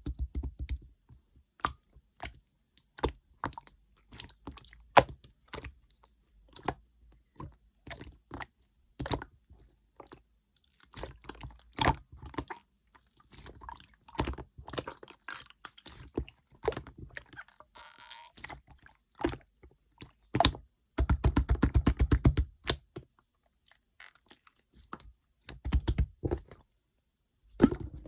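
Clear slime being squished and poked by hand, making irregular sharp clicks and crackles, with a fast run of clicks about three-quarters of the way through.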